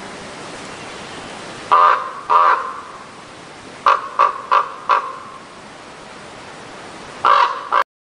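Harsh, crow-like bird calls over a steady hiss: two calls about two seconds in, a quick run of four about four seconds in, and two more near the end.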